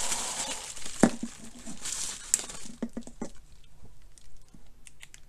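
Bubble wrap crinkling and rustling as toy swords are pulled out of it by hand. There is a sharp click about a second in and a few lighter clicks about three seconds in, and the handling grows quieter after that.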